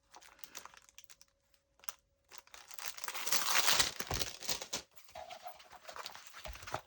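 Plastic packaging of a diamond painting kit crinkling and rustling as it is handled, starting about two and a half seconds in after a near-quiet start, then thinning to scattered small rustles and clicks.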